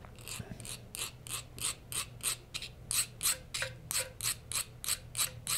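Fine hand file rasping in light, even strokes across the face of a shotgun's metal trigger, about three strokes a second, squaring and smoothing an out-of-square, jagged edge to make the trigger crisper.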